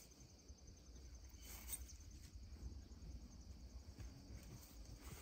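Faint, steady high-pitched trilling of insects in late summer, over a low rumble.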